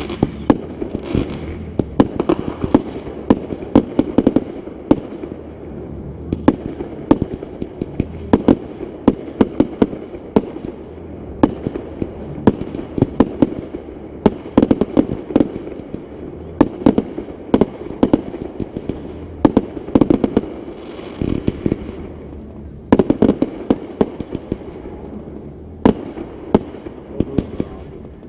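Fireworks display in full swing: rapid booms and bangs several times a second over continuous crackling, with thicker volleys near the end.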